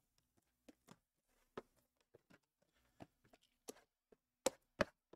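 Sealed cardboard trading-card boxes being handled and set down on a table: scattered light taps and knocks, with two sharper knocks near the end.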